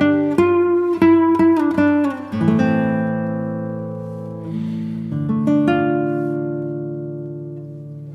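Acoustic guitar music: a run of quick plucked notes, then chords left to ring and slowly fade, with another chord struck about five seconds in.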